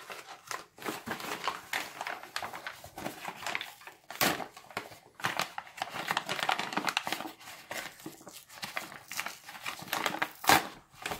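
Foil-lined paper ration bag being pulled open and handled, crinkling and rustling irregularly, with louder crackles about four seconds in and again near the end.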